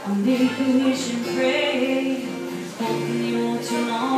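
Live acoustic country music: two acoustic guitars played together, with a woman singing held notes over them.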